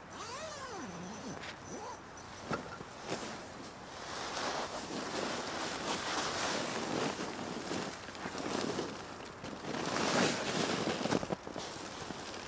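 Nylon tent fabric and rain clothing rustling as a person crawls into a small tunnel tent, in uneven bursts that are loudest near the end. A short sliding rasp at the start.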